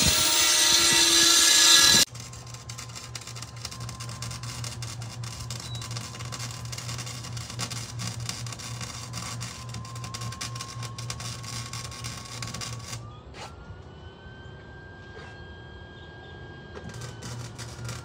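A power drill runs loudly for about two seconds, drilling for anchors at the base of a steel rail post. It cuts to the steady crackle of an electric arc from a Lincoln Electric welder as steel hand rails are welded. The crackle thins out about 13 seconds in and picks up again near the end.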